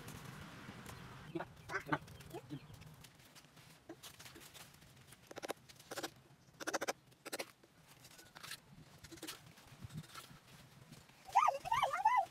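Scattered short clicks and scrapes, then near the end an animal calling several times in wavering, high-pitched cries.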